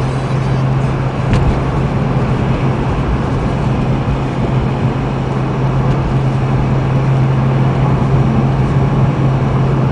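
Cabin noise of a BMW 330i driving at steady speed: a steady low engine hum over tyre and road rumble.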